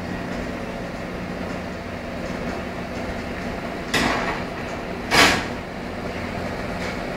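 CNC machine running with a steady hum, broken by two short hissing bursts about four and five seconds in, the second one louder.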